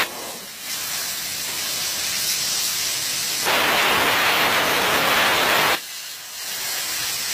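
Plasma torch of an EMC CNC-1530 plasma cutting machine cutting sheet metal: the arc's loud, even hiss cuts off at the start, a softer hiss carries on for a few seconds, then the arc hisses loudly again for about two seconds and cuts off sharply.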